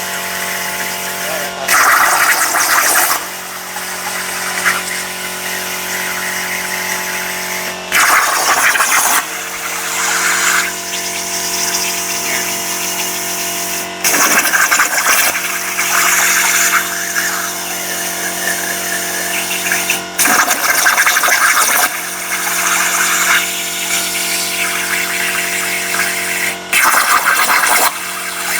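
CNC plasma cutting machine running: a steady hum made of several tones, broken about every six seconds by a loud hissing burst lasting a second or two, five times in all.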